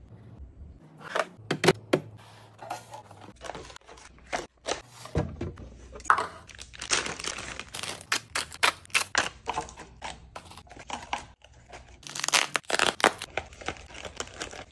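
Plastic food wrappers crinkling and rustling as wrapped string cheese sticks and packs are handled, with many sharp taps and clicks as items are set into a clear plastic bin. The crinkling is densest in two stretches, a little past the middle and near the end.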